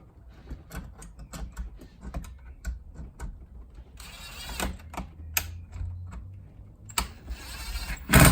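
Clicks, taps and plastic scraping of hands fitting a car sun visor's hinge clips into the headliner, with two longer scrapes partway through and a sharp knock near the end.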